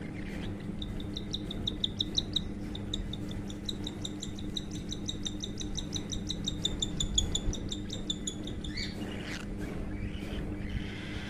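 Baby cockatiel giving a long run of rapid, evenly repeated high chirps, its food-begging call during hand-feeding. The chirps stop about nine seconds in. A steady low hum runs underneath.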